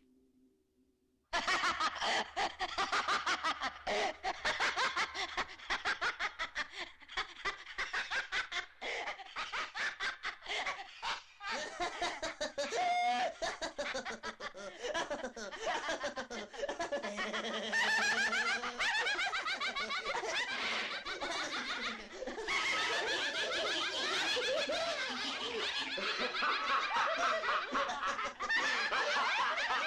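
A chorus of several voices laughing wildly together, among them a man's hysterical laugh, starting about a second in and running on without a break.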